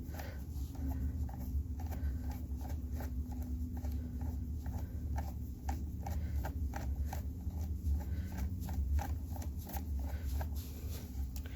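Light, irregular clicking of a screwdriver turning a scooter battery terminal screw, a few clicks a second, as it is spun without catching the nut below. A steady low hum sits underneath.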